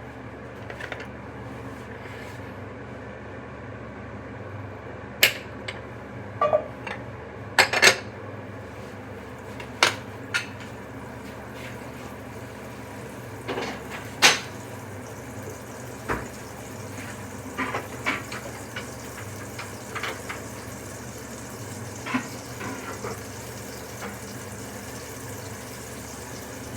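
Kitchen clatter: pots, dishes and utensils clinking and knocking every second or two over a steady background hum, with the sharpest clinks in the first half.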